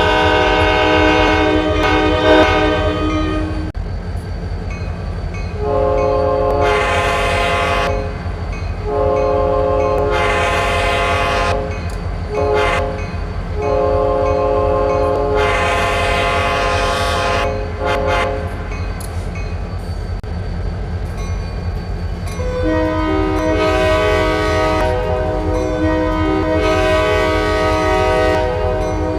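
Locomotive's multi-chime air horn: one blast ending about four seconds in, then a long, long, short, long sequence, the grade-crossing signal, and another long blast starting near the end. A steady low rumble of the train runs underneath.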